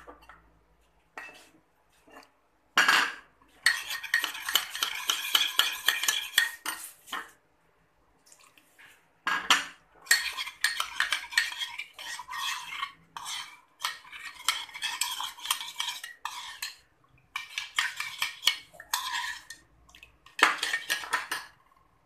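Metal spoon clinking rapidly against the inside of a ceramic mug while stirring rendang spice powder into water, in several runs of stirring with short pauses between.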